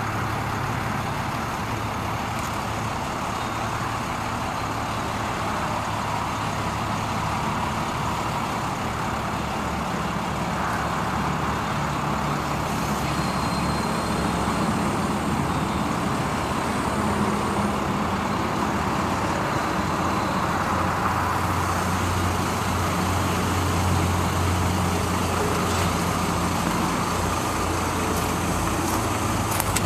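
A 1998 Ford F800's Cummins 5.9-litre diesel engine running steadily while it powers the aerial lift's hydraulics as the bucket boom is lowered. Its low hum grows stronger in the second half.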